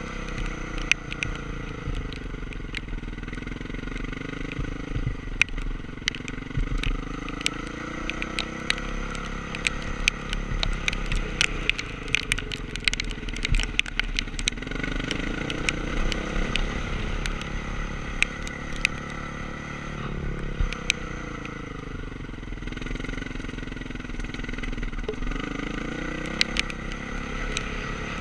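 Honda CRF450R's single-cylinder four-stroke engine ridden at easy revs, its pitch rising and falling in slow waves as the throttle is rolled on and off. Frequent sharp clicks and clatter run over the engine sound.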